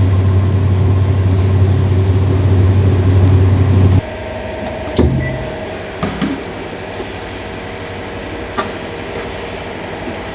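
IFB top-load washing machine running with its drum shaking and giving a loud, steady low hum. About four seconds in the loud hum cuts off suddenly, leaving quieter running with a few knocks. The technician puts the noise and the drum shaking down to worn shock absorbers.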